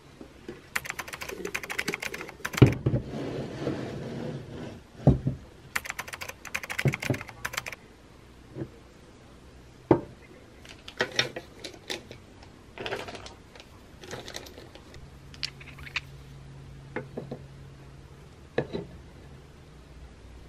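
Handling sounds of a small black-painted wooden shelf unit being set down on a wooden desk and objects being put on its shelves. There are two clusters of scraping and clattering in the first eight seconds, then scattered single knocks and taps.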